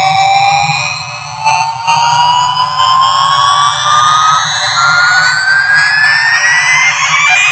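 Daron toy airplane's electronic engine sound effect: a whine rising steadily in pitch over a low rumble, dipping briefly about a second in.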